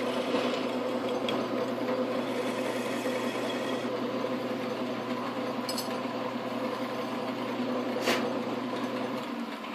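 Metal lathe running with a 3D-printed plastic pulley spinning in its chuck: a steady motor and drive hum with a few faint clicks. Its low hum drops away near the end.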